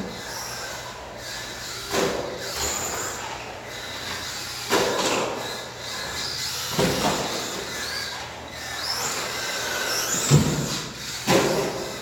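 Kyosho RT6 electric stadium truck (Trinity D4 brushless motor) running laps on carpet. Its motor whine rises and falls in pitch with the throttle, broken by about five sharp knocks as it lands off jumps.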